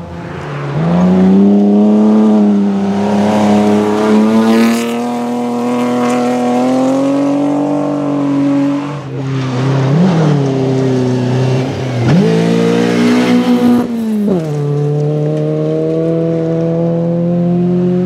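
Rally car driven hard on a gravel stage, its engine held at high revs as it approaches and passes. Twice near the middle the engine note drops and snaps straight back up as the throttle is lifted and picked up again. It then pulls hard and holds high as the car goes by.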